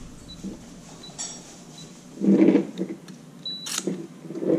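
Schlage electronic lock's keypad beeping as a user code is entered: a few short, faint high beeps, then one louder beep about three and a half seconds in. Mixed in are mechanical clicks and a short whir from the lock's small motor driving its locking part down.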